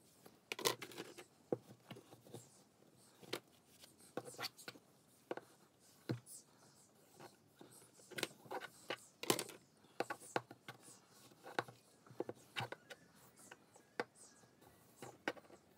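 White plastic uPVC window glazing beads being handled and wiped clean with a cloth: irregular light clicks and knocks of plastic, with short rubbing and scraping sounds.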